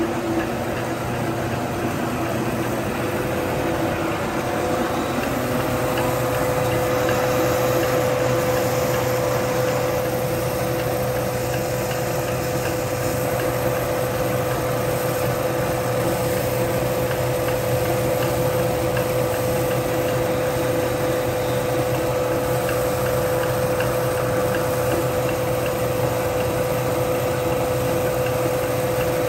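Rice mill's paddy huller running steadily while hulled bamboo rice streams from its chute into a basin. A steady whine joins the machine noise about five seconds in and holds.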